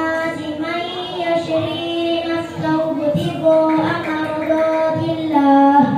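A young girl chanting Qur'an recitation in tartil style into a handheld microphone. She holds long, melodic notes that glide up and down in pitch, dropping lower just before a pause for breath at the end.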